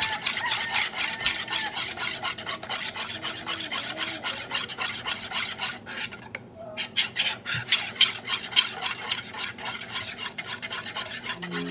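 Wire whisk beating pancake batter in a plastic mixing bowl: rapid scraping, tapping strokes against the bowl, with a brief pause a little past halfway.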